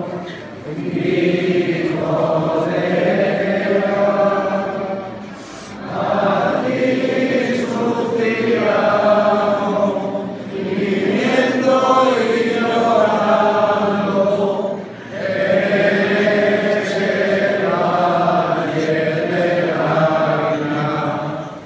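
Many voices singing a slow religious hymn together. They sing in long phrases of about five seconds, with short breaks between.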